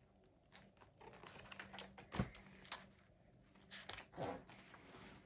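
Pages of a paperback picture book being turned and handled: soft paper rustles and light taps, with a couple of sharper clicks a little after two seconds in.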